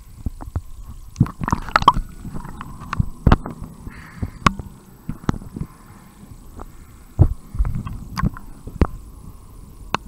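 Muffled underwater audio from a snorkeler's camera: irregular low thumps and knocks as water and the swimmer's movements buffet the camera's waterproof housing, over a faint steady hum.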